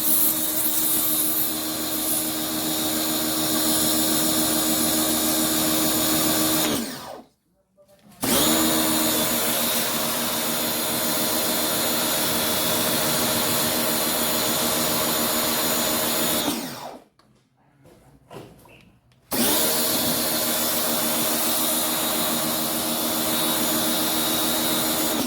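Black & Decker BW13 pressure washer's electric motor and pump running in three spells of several seconds each. Each spell starts abruptly, and the hum sags in pitch as it cuts out. The gaps between spells are short: about a second, then about two and a half seconds.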